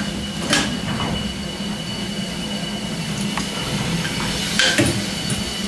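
Restored Harvey & Co. double-acting beam winding engine, a 27-inch-cylinder steam engine, running with a steady low mechanical drone and a background hiss of steam. Two short hissing surges come through, one about half a second in and one near the end.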